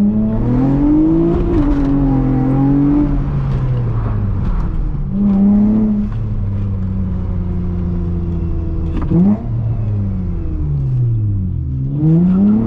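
Honda J32A3 3.2-litre V6 engine of a six-speed manual Accord coupe revving hard under acceleration, its pitch climbing and dropping several times as it pulls and is shifted, with a sharp rise in revs about nine seconds in.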